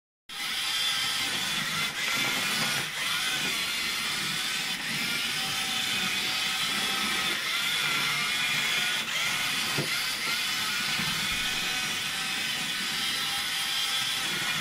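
Slot-car monster truck's small electric motor whining as it runs round the track, the pitch wavering up and down with speed, with a few light clicks.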